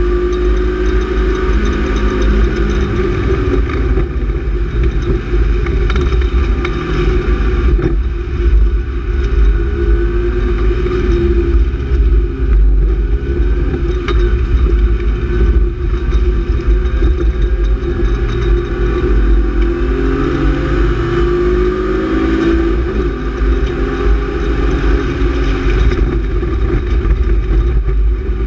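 BMW E36 328is straight-six engine heard from inside the cabin at racing pace, its note falling and rising as the car brakes and accelerates through corners. Over it runs a constant heavy low rumble of road and wet-tyre noise.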